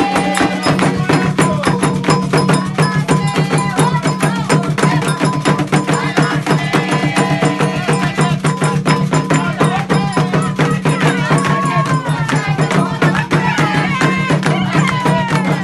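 Candomblé ritual music for Xangô: fast, continuous hand drumming with a rapid clicking wood-block-like pattern, and voices singing over it, the singing clearest near the end.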